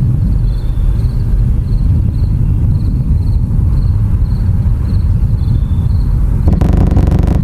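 Evenly repeating cricket chirps, about two a second, over a heavy low rumble. About six and a half seconds in, a louder engine-like drone cuts in suddenly.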